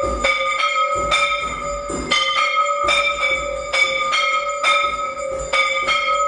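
Temple bells rung fast and without a break for the aarti, with uneven strokes about two to three a second that keep the ringing going. Low thumps sound underneath.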